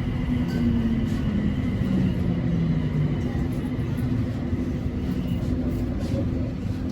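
BTS Skytrain electric train running, a steady low rumble with a motor whine that falls in pitch over the first three seconds.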